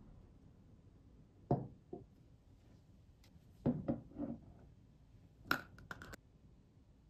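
Glass jars knocking down onto a wooden tabletop, twice about 1.5 s in and in a cluster around 4 s, then a few sharp clicks near the end as a metal screw-top lid is twisted on a glass jar.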